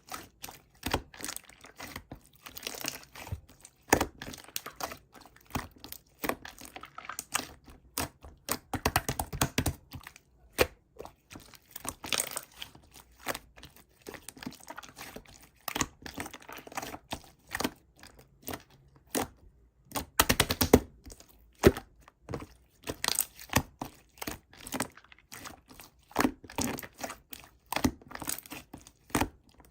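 Slime being squeezed, folded and stretched by hand, making irregular runs of sticky clicks, pops and crackles, with a brief pause and then a dense, louder burst of popping about two-thirds of the way through.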